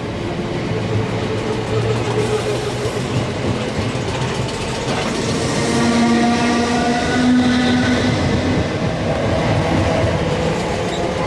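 South West Trains Class 455 electric multiple unit running past along the platform: a steady rumble of wheels on rail, with a whine from the traction motors and gears.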